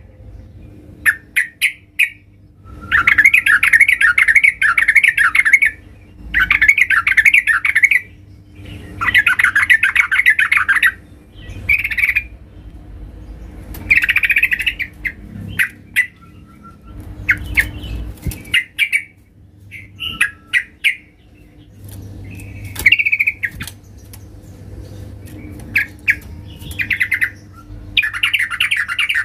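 Yellow-vented bulbul (trucukan) singing loudly: chattering, warbling phrases of two to three seconds, repeated every few seconds with short chirps in between. This is the loud 'gacor' challenge song of a bulbul seeking a rival to fight.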